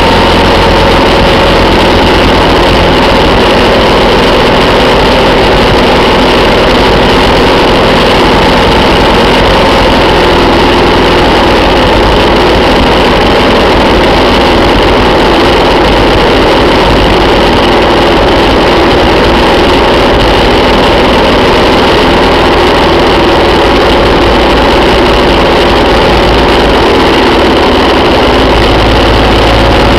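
Motorcycle engine running steadily at cruising speed, loud and unchanging, mixed with wind rush from riding.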